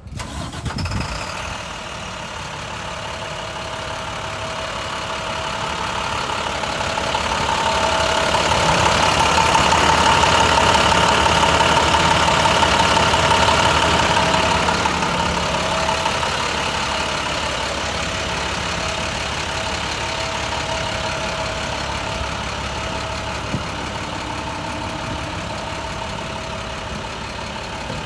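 Diesel engine of an International DuraStar grapple truck idling steadily. It grows louder toward the middle, while passing the front grille, then eases off again.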